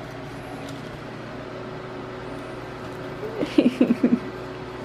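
Steady faint background hum, with a quick run of about five short vocal sounds about three and a half seconds in.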